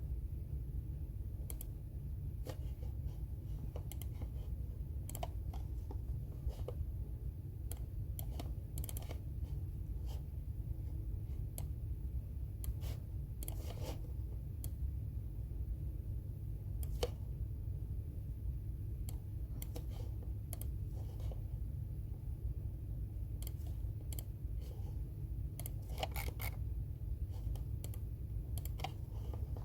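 Computer keyboard typed on in irregular, scattered bursts of key clicks, over a steady low hum.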